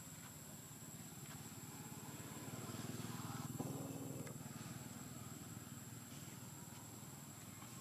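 Faint low background rumble that swells and fades about halfway through, with one short sharp sound at its loudest point.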